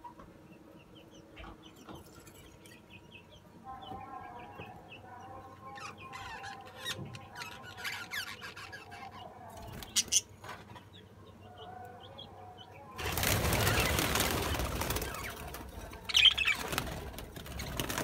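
Budgerigars chirping and chattering, short repeated calls. About thirteen seconds in, a loud flurry of flapping wings runs for a few seconds as a group of the budgies takes off, and a sharp high call follows.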